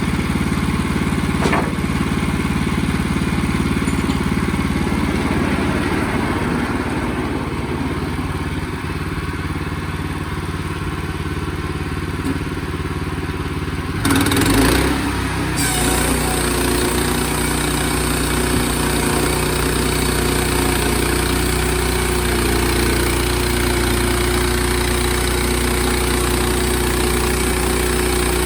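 Portable sawmill's engine running steadily. About halfway there is a brief, louder noisy burst, after which the sound carries more hiss and a steady hum.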